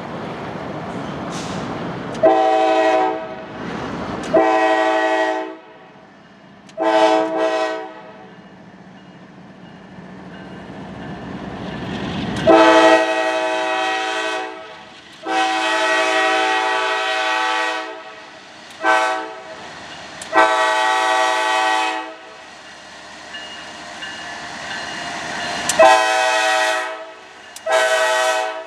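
A Kansas City Southern de México freight locomotive's five-chime horn blowing the long, long, short, long crossing signal, twice over, then starting it again near the end. Between the blasts the diesel locomotives rumble past with wheel and rail noise, growing louder as they draw close.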